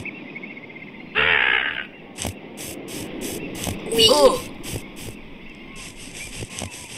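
Cartoon bird squawks: a loud squawk about a second in and a call that falls in pitch about four seconds in. Between them come footsteps crunching at about three a second.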